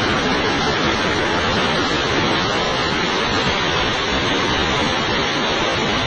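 A powerful waterfall pouring into its plunge pool: a loud, steady rush of falling and churning water.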